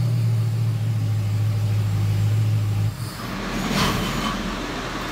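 Chevy 383 stroker small-block V8 with MSD Atomic fuel injection running steadily on an engine dyno; its sound stops abruptly about three seconds in. A steady background hum remains, with a brief hiss about a second later.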